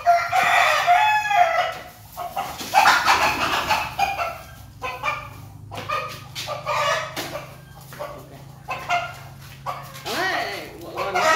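Domestic chickens clucking, with a rooster crowing near the start.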